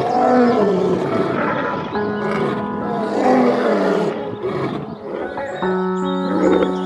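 Two deep arching animal calls, each rising then falling, about three seconds apart, over steady background music.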